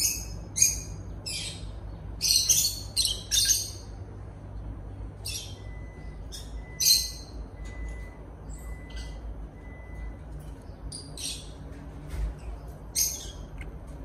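Lovebirds chirping: short, high-pitched chirps in quick runs of several, with brief pauses between the runs.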